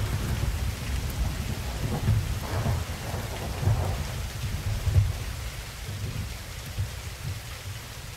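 Thunderstorm sound effect: low rolling thunder that swells and falls every second or so over a steady hiss of rain, slowly fading.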